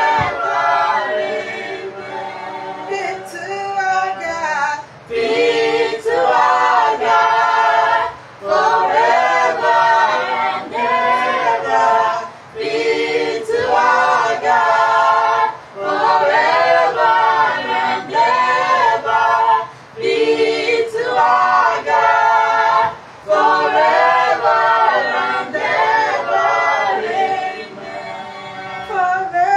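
A small group of mixed female and male voices singing a worship song together a cappella, in phrases of a few seconds separated by short breaths.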